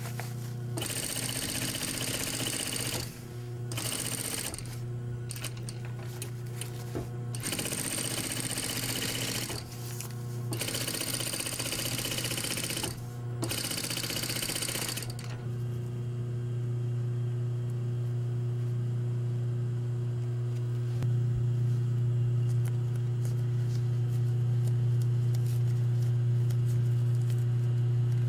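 Industrial sewing machine stitching fabric in runs of a few seconds with short pauses between them. After about fifteen seconds the stitching stops and only a steady low hum continues.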